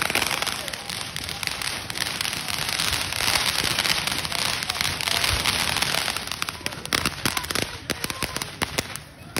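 Consumer ground-fireworks fountain spraying sparks, with a dense, continuous crackling hiss. It is followed by a quick run of sharp cracks about two seconds before the end, after which it dies down.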